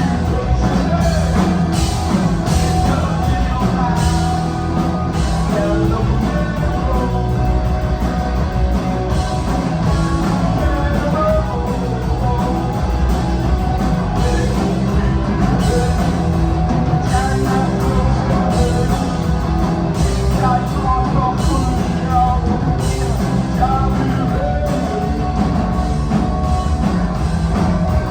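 Rock music with a singing voice, loud and steady throughout.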